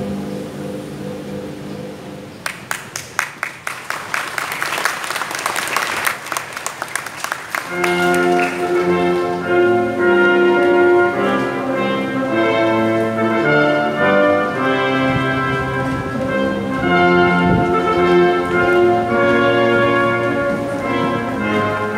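A choir's last sung notes fade out, then an audience claps for about five seconds. Orchestral music with brass starts about eight seconds in and plays steadily as the graduates file off the stage.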